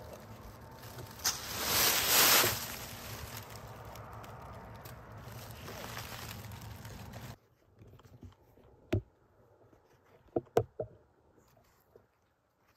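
Rustling and scraping of dry leaf litter and brush as someone moves through the woods, with a loud burst about two seconds in. It drops off abruptly, then a few sharp snaps and crunches are heard, one near the middle and a quick cluster a little later.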